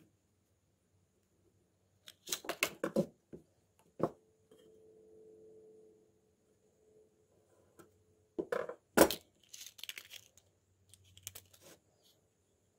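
Handling noise at a wooden workbench: a fir block being turned and a steel rule and tape measure set against it, in two bursts of scrapes and knocks with a single sharp knock between them, plus light scratching of a pen marking the wood.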